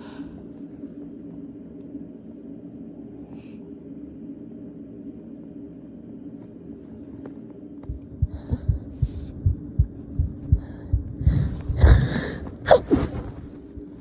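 Heartbeat thumps picked up through a phone lying on the chest, about two to three a second, starting about eight seconds in over a steady low hum. Near the end comes a stifled, held-back sneeze with sharp breathy catches, the loudest sound here.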